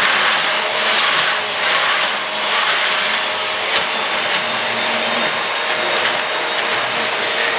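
Canister vacuum cleaner running steadily: a loud rush of air with a steady whine, its floor head being pushed over a tile floor.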